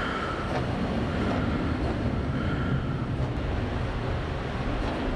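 Handheld gas torch flame burning steadily with a rumbling roar as it scorches the edges of the sign.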